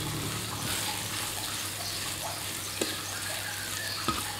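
Garlic, coriander root, chilies and crushed black peppercorns sizzling in hot oil in a pan while they fry until fragrant, with a steady low hum underneath and two light knocks about three and four seconds in.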